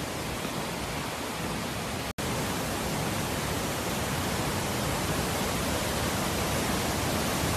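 Steady rushing noise of floodwater, broken by a brief cut about two seconds in.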